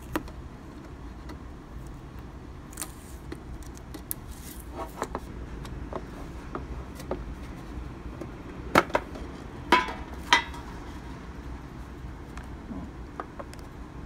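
Metal cookie tin being opened by hand: scattered small metallic clicks and taps, then three sharp clanks with a brief ring between about nine and ten and a half seconds in as the lid is worked loose.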